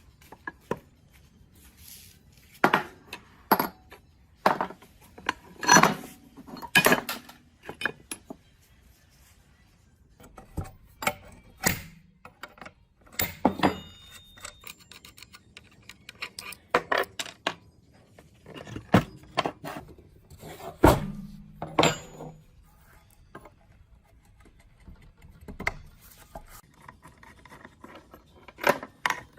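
Metal parts and hand tools clinking and knocking against each other as they are handled, in irregular clusters of sharp strikes with short pauses between.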